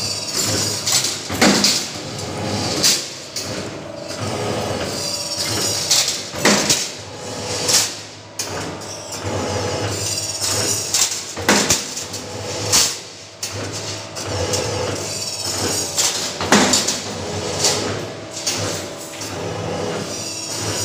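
2D CNC flat-steel bending machine working 3×8 mm flat steel strip: a steady motor hum under irregular sharp metallic clanks and knocks, every second or two, as the strip is fed and bent and the bent steel frames clatter together when handled.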